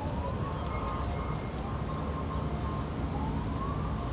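A faint siren wailing in slow rising sweeps over the steady rumble of city traffic.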